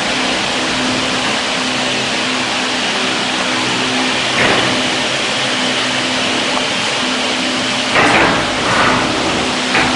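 Induction brazing setup for diamond saw blades running with a steady machine hum and hiss. Short noisy bursts break in about four seconds in and three times near the end.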